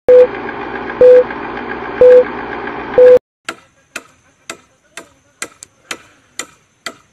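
Film-countdown leader sound effect: a steady whir with a short beep once a second, four beeps, cutting off suddenly a little over three seconds in. Then sharp strikes on a bamboo pole, about two a second.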